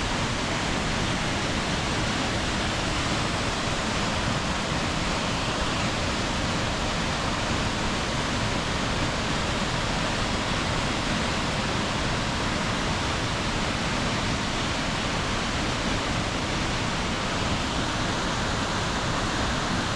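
Waterfall pouring, a steady, even rush of water with no break.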